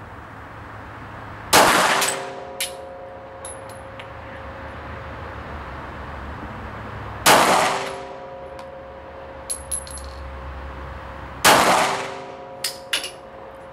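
Three shots from a W+F Bern M06/29 Parabellum (Luger) pistol in 7.65 Parabellum, fired slowly, several seconds apart. Each report is followed by ringing that fades over about a second and a couple of small metallic clinks.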